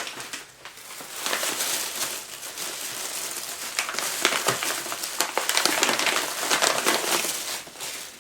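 Paper wrapping rustling and crinkling as a gift is unwrapped by hand. It is a continuous rustle of fine crackles that starts about a second in and stops shortly before the end.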